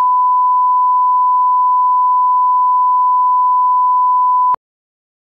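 Steady line-up test tone, the reference beep that goes with colour bars: one unbroken pitch that cuts off suddenly about four and a half seconds in.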